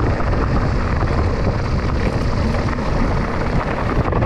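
Wind rumbling on the microphone of an electric-assist mountain bike riding downhill on a gravel track, with the tyres crunching and rattling over loose stones.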